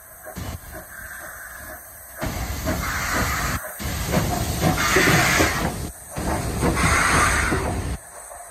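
Victorian Railways R-class steam locomotive R766 rolling slowly past at close range, letting off loud hissing steam from about two seconds in until shortly before the end, cut by two brief gaps.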